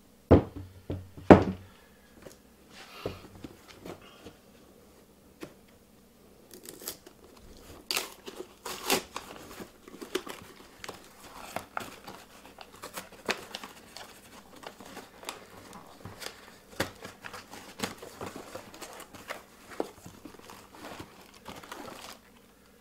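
A cardboard tool box being torn open and its packaging crinkled and rustled as the contents are pulled out, in a dense run of crackling tearing sounds. Two sharp knocks come in the first second and a half.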